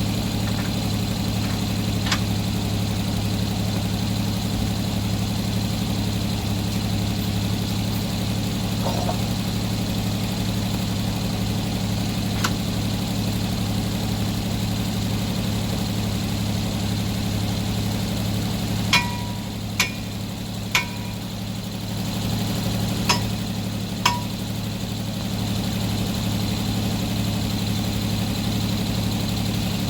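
Sawmill engine idling steadily. About two-thirds of the way through come five sharp metallic clanks, each with a short ring.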